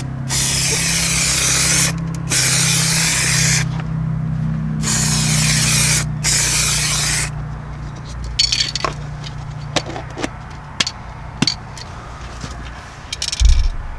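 Aerosol primer spray can hissing in four bursts of about a second to a second and a half each, laying primer on bare metal. After the spraying come a few light scattered clicks and taps.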